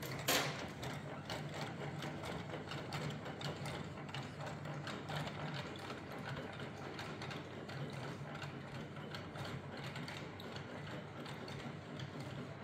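Small electric motors and plastic gearing of running Faller model fairground rides: a steady low hum with fast, dense ticking and clicking, and one sharper knock just after the start.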